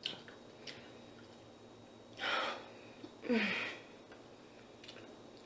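A woman breathing audibly: a sharp breath a little after 2 s, then a sighing exhale with a short falling voiced tone, among a few small mouth clicks from eating.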